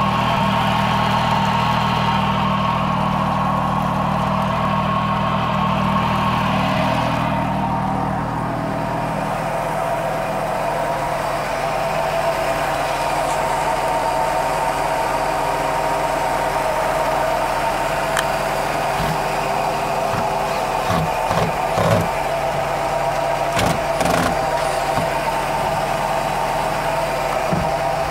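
Volvo Penta 4.3 V6 marine engine, a newly installed replacement, idling steadily. Its deeper tones drop away about eight seconds in, and a few short clicks come later.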